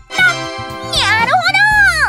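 Children's background music, with a high sliding cartoon-style sound that swoops down and back up about halfway through.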